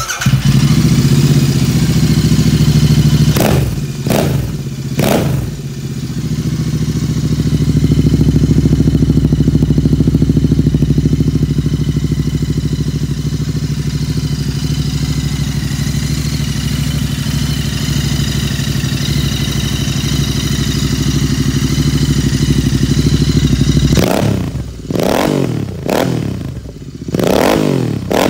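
Royal Enfield 650 parallel-twin engine idling through a full stainless-steel aftermarket exhaust with an aero-style end can and its standard baffle insert. The throttle is blipped three times a few seconds in and several times near the end, the revs rising and dropping back to a steady idle.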